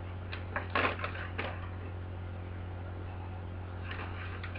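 Plastic mailer bag crinkling as it is handled, in a few short bursts about a second in, with fainter rustles near the end as scissors are set to the bag to cut it open. A steady low hum runs underneath.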